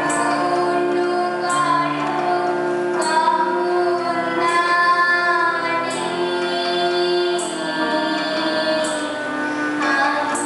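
A young girl singing a Bengali song solo into a microphone, holding each note for a second or more.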